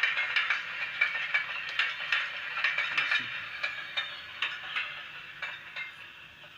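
Recorded railway sound effect played from a small speaker on a model-railway sound-effect unit: a train's rattle with a run of clicks, fading out over the last few seconds.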